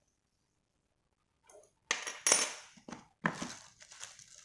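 Small metal hand tools, a screwdriver and a key, clinking and clattering as they are handled, with several sharp clicks in the second half.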